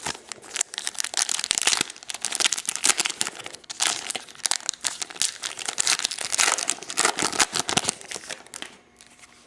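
Foil wrapper of a 2010 Press Pass trading-card pack crinkling as it is torn open and handled. The crinkling stops about a second before the end.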